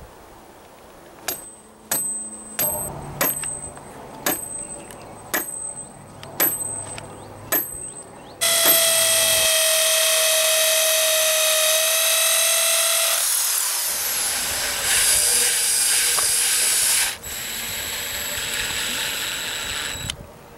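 Power drills at work on a house wall. About eight sharp clicks come first, then an electric drill runs at a steady high whine for several seconds as it bores into brick. The sound turns noisier before a quieter stretch of a cordless drill driving a Tapcon anchor screw through a copper cable strap.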